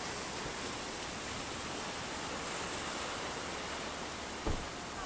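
Ocean surf breaking and washing over black lava rocks: a steady, even rush of whitewater. A brief low thump about four and a half seconds in.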